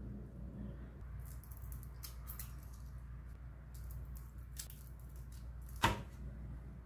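Faint, scattered crackling clicks of cooked lobster leg shells being squeezed by hand to push out the meat, then a single sharp click about six seconds in, over a low steady hum.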